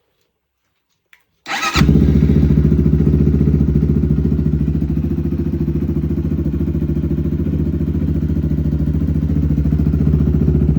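Kovi Max 300's single-cylinder four-stroke 174 engine started on the electric starter for its first run after a full rebuild: a click, a brief crank, then about a second and a half in it catches and settles into a steady, even idle.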